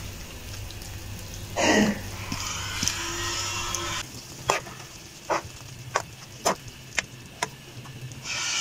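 Water with grated potato and shredded cabbage boiling and hissing in a frying pan, with a thud about two seconds in. In the second half the boiling is quieter, and a metal spoon knocks against the pan about twice a second as the cabbage is stirred in.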